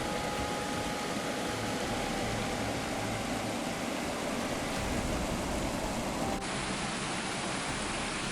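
Steady rushing noise of fast-flowing floodwater, with an abrupt change to another clip of the same kind of noise about six seconds in.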